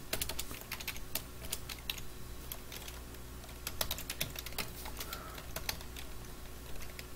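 Typing on a computer keyboard: a run of irregular key clicks with short pauses between them.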